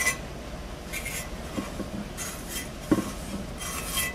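Light handling sounds on a ceramic platter: soft scrapes and small clinks as a plastic squeeze-bottle applicator and a hand move over the glazeware, a few short scratchy sounds with a sharper click about three seconds in.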